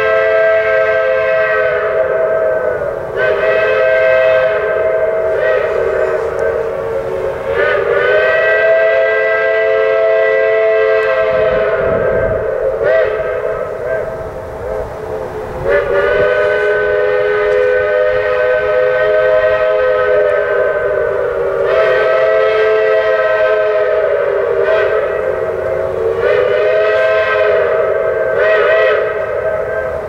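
Crosby chime whistle blowing long sustained blasts that sound a chord of several notes. The pitch sags and swells back several times as the whistle is eased off and opened up again.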